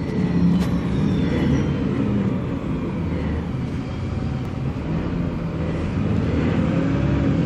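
Alexander Dennis Enviro300 single-deck bus heard from inside the saloon while under way: a steady diesel engine and drivetrain drone. A high whine falls in pitch over the first few seconds, and the engine note rises near the end.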